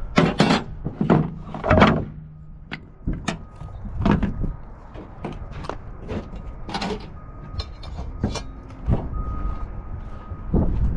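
Irregular wooden knocks and clatters as boards and tools are picked up and set down during cleanup: a quick run of loud knocks in the first two seconds, then scattered ones.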